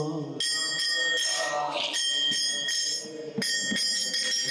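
Kirtan accompaniment between sung lines: karatals, small brass hand cymbals, struck in a steady beat and ringing on, with music under them.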